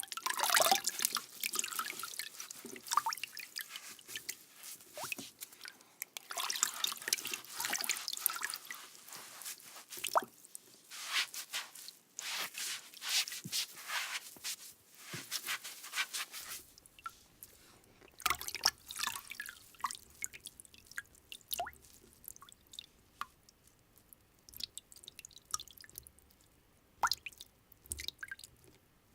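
Washing in water: splashing and sloshing in quick bursts for about the first sixteen seconds, then sparser single drips and small splashes over a faint low hum.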